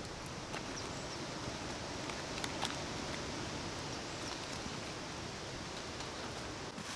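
A wooden-handled knife dicing red bell pepper against a wooden bowl: a few short cutting clicks, two close together about two and a half seconds in, over a steady outdoor hiss.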